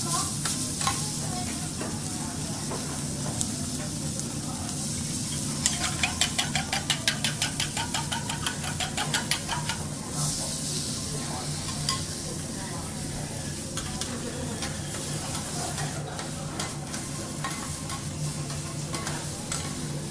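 Food sizzling on a hot teppanyaki griddle. About six seconds in comes a quick run of sharp taps, roughly six a second, lasting some three seconds.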